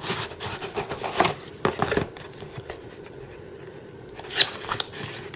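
Box packaging being handled: irregular rustling and scraping during the first two seconds, then a sharp click a little past four seconds, followed by a few smaller ones, over a faint steady hum.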